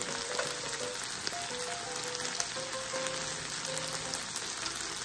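Cheese dakgalbi sizzling steadily in an electric hot plate pan, with light background music playing over it.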